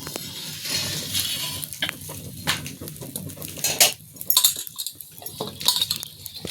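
Metal kitchen utensils and pots clinking and scraping in irregular short knocks, like a spoon working in a pan.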